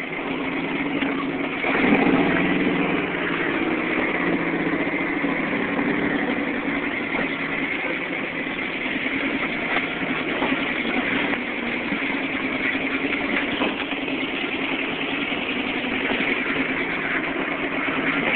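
Off-road vehicle engine running steadily as it climbs a trail, revving up about two seconds in and then holding an even pace.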